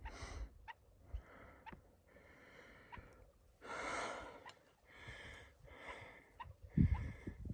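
White-tailed ptarmigan calling, a series of short calls roughly one a second, the loudest about four seconds in. A low thump near the end.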